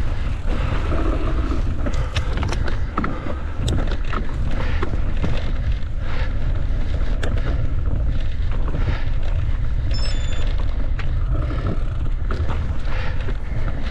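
Wind rumbling on the microphone of a mountain-bike rider's camera while riding, with scattered rattles and knocks from the bike on rough trail. A brief high beep sounds about ten seconds in.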